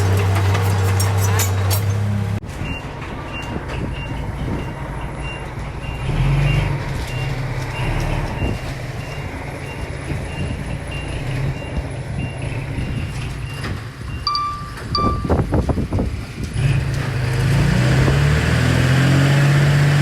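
Heavy earthmoving machinery at work: engine noise with a reversing alarm beeping steadily about twice a second. About two-thirds of the way through come two short, lower beeps, and near the end an engine revs up and then holds a loud steady note.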